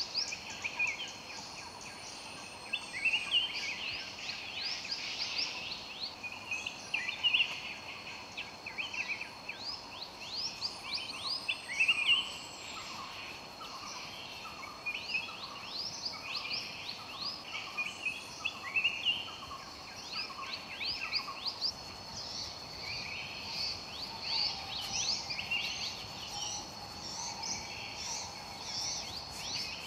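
Woodland birds chirping in repeated bursts of quick trilled notes every couple of seconds, over a steady high-pitched insect drone.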